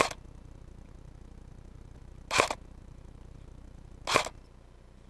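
Airsoft gun firing single shots, three sharp cracks spaced about two seconds apart.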